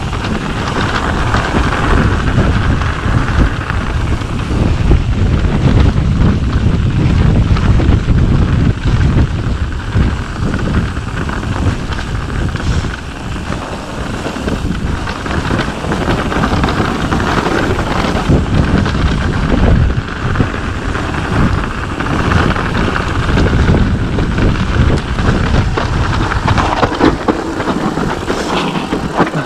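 Loud, continuous wind noise on the camera's microphone mixed with the rumble and rattle of mountain bike tyres rolling fast over a dirt and leaf-covered trail.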